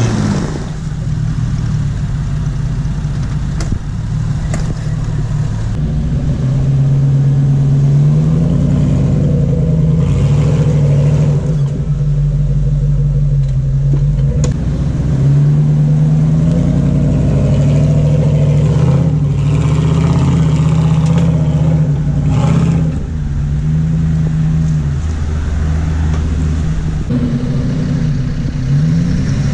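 Jeep SUV engines labouring in low gear up a steep muddy slope, the revs held steady for a few seconds at a time and then rising and falling with the throttle.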